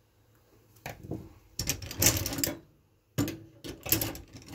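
Hand tools clattering and rattling as they are rummaged through while searching for a 3mm Allen wrench, in two bouts of a second or two each after a quiet first moment.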